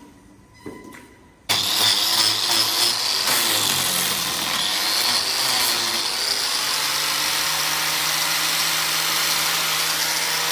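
An engine starts running loudly and abruptly about a second and a half in, its pitch wavering at first and then settling into a steady hum.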